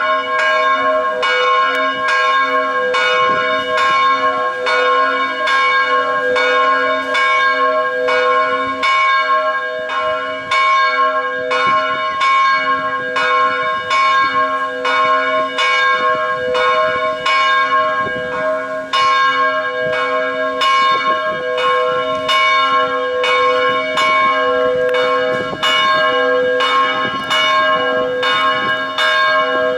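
Church bells ringing in a steady, even peal of about two strokes a second, each stroke's tone ringing on into the next.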